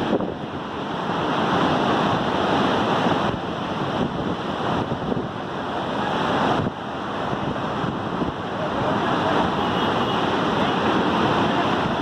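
Floodwater rushing out of the Srisailam dam in a steady, loud wash of noise, with wind buffeting the microphone.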